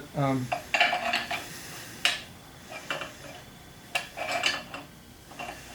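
Metal hand tools clinking and scraping against the metal parts of a sewing machine being dismantled, in several short clusters of clicks with brief ringing.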